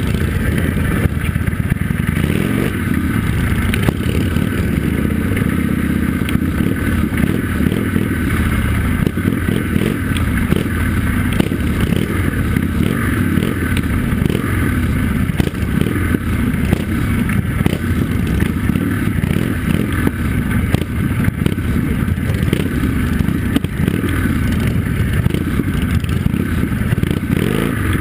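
Motorcycle engine running steadily at low speed, loud and close to the microphone, as the bikes roll slowly along.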